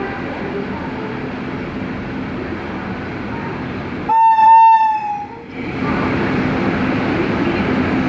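WAP-7 electric locomotive standing with a steady hum, then sounding its shrill horn once for about a second and a half as the departure signal, the pitch sagging slightly as it dies away. After the horn the locomotive's running noise is louder.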